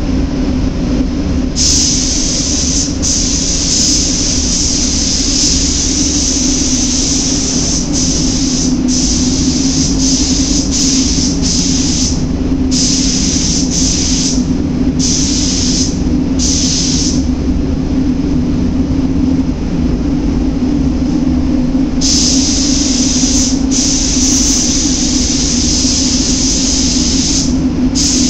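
Gravity-feed compressed-air spray gun hissing in bursts as the trigger is pulled and released: a run of short bursts, a pause, then a long steady spray near the end. Underneath, a steady low machine drone.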